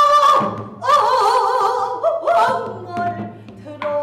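Female pansori singer's voice: a long held note that breaks off, then a sung line with wide, wavering vibrato. A few soft strokes on the buk barrel drum accompany it.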